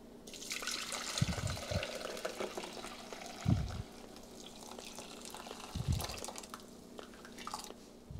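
Hot bean-cooking water poured from a stainless steel pot through a wire mesh strainer into a glass bowl, splashing steadily at first and thinning to a trickle later. A few low thumps come through, the loudest about three and a half seconds in.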